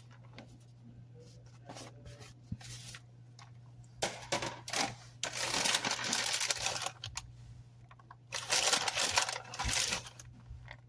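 Rustling and scraping as shredded cheddar is scattered and spread by hand over the macaroni in a baking pan, in three noisy bursts after a few quiet light ticks.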